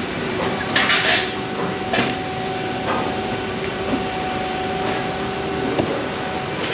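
Steel fabrication shop floor: a steady machinery hum with a faint whine, a short hissing burst about a second in, and a few scattered metal knocks.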